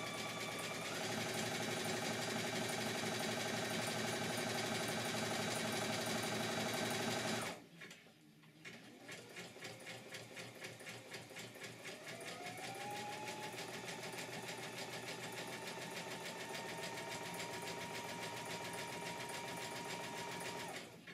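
Brother Innovis XV computerised sewing machine sewing a zigzag stitch, the motor and needle strokes running steadily and picking up speed about a second in. It stops abruptly about a third of the way through, then starts again more quietly and speeds up once more, sewing on until just before the end.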